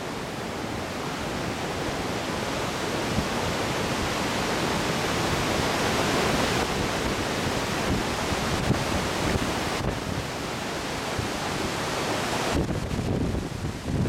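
Steady rush of a massive waterfall, the Garganta del Diablo (Devil's Throat) of the Iguazu Falls, as a dense even noise of falling water. Near the end, wind buffets the microphone with uneven low thumps.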